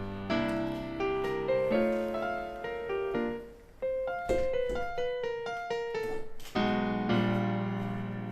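Background piano music: chords and a gentle melody, ending on a held chord near the end.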